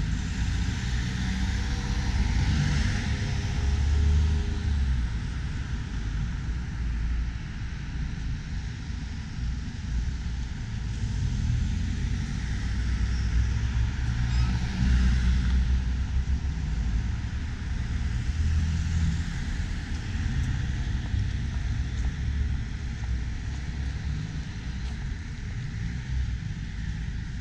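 Street traffic at a road crossing: cars and a van driving past, the steady rumble swelling as each vehicle goes by, loudest a few seconds in and again about halfway through.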